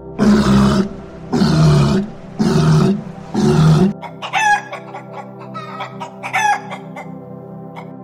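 A walrus calls four times in quick succession, each loud call about half a second long. About four seconds in, chickens follow with a run of short, sliding clucking calls.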